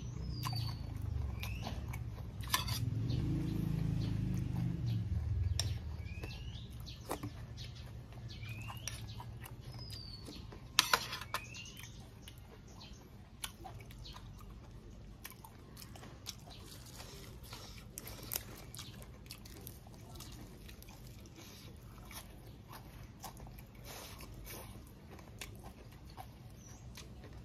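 A man chewing a mouthful of raw beef and liver close to the microphone, with wet mouth clicks; the chewing is loudest for the first several seconds, then quieter. A bird gives short rising chirps several times in the first half.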